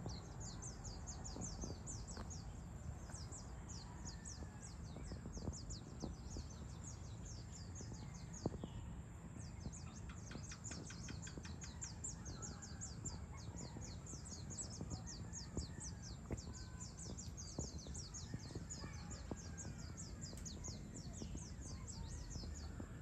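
A dense chorus of birds chirping: quick high-pitched notes several a second without a break, with scattered other calls, over a low steady rumble.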